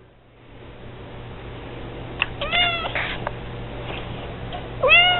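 Domestic cat meowing twice: a short call about two and a half seconds in and another near the end, each rising then falling in pitch.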